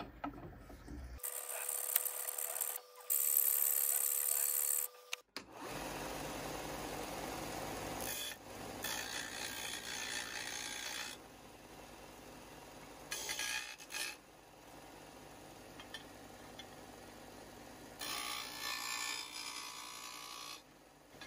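Steel being worked by hand, heard as a few seconds of scraping, then a bench disc sander grinding the edge of a steel wrench. The sander runs steadily and grows louder in stretches each time the steel is pressed against the disc.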